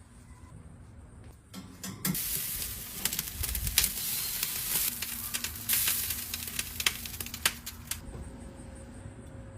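Food sizzling and crackling for about six seconds, starting about two seconds in and stopping shortly before the end, with many sharp pops over a steady hiss.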